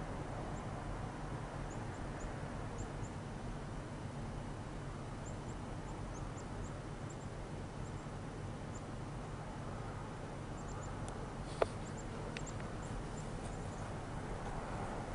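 Steady low outdoor rumble and hiss, with faint, very high chirps of small birds scattered throughout. A single sharp click comes about two-thirds of the way through.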